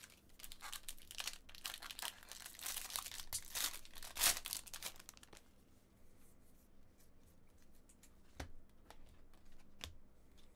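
A foil wrapper on a Bowman baseball card pack being torn open and crinkling for about the first five seconds, with one loud rip about four seconds in. After that, a few scattered sharp ticks as the stack of cards pulled from it is handled.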